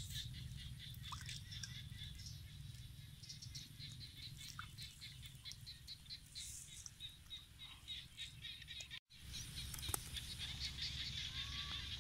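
Faint outdoor ambience: quick high chirps and ticks over a low steady rumble, cutting out for an instant about nine seconds in.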